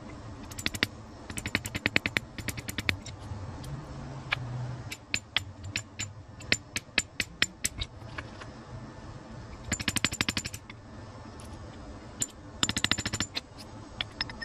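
Claw hammer tapping a small nail into a block of wood: quick runs of light taps alternating with single, sharper strikes.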